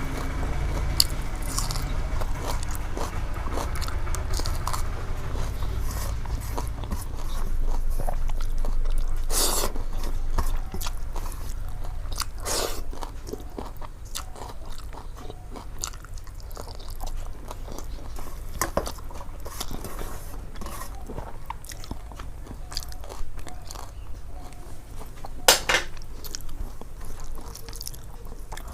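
A person chewing and biting a rice-and-curry meal close to the microphone, with wet mouth sounds and scattered crunches, three of them sharper and louder than the rest.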